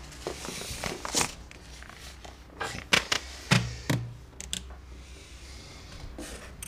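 Objects being handled and set down on a wooden table and desk: a run of sharp clicks and knocks, with two dull thuds about halfway through.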